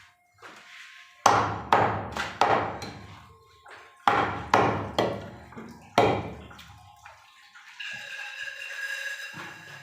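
Heavy blade blows chopping beef on a wooden block: about eight sharp strikes in two quick groups, each ringing briefly. Music comes in near the end.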